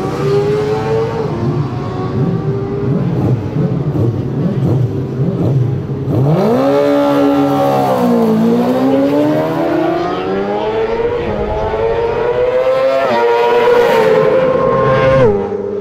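Racing sidecar outfit's engine held at steady revs, then about six seconds in it revs hard and the outfit pulls away. The pitch dips briefly and then climbs steadily as it accelerates, dropping sharply near the end.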